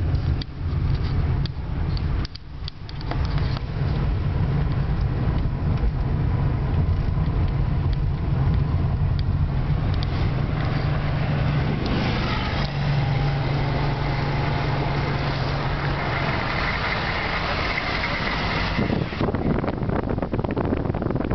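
Car engine hum and road noise heard from inside a moving car, steady throughout, with a louder rushing noise for several seconds past the middle.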